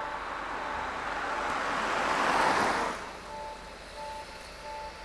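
Rail-yard sound: a rushing noise swells over about two seconds and cuts off suddenly about three seconds in. Behind it a two-tone electronic alarm repeats steadily, about once every three-quarters of a second.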